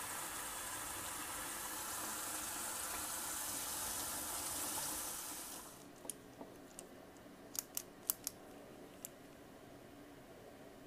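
Tap water running steadily into a sink through a mesh strainer of tumbling media, stopping abruptly about five and a half seconds in. A handful of light clicks and taps follow over the next few seconds.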